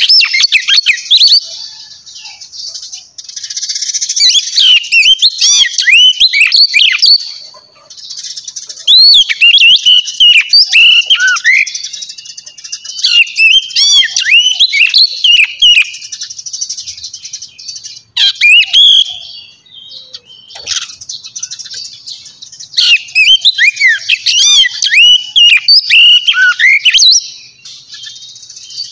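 A crowd of small birds chirping and twittering together, many overlapping calls coming in bouts a few seconds long with short lulls between.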